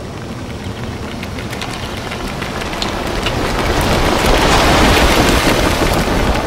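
A rushing roar that swells steadily to a peak about two-thirds of the way through, then eases slightly, with fine crackling ticks over it.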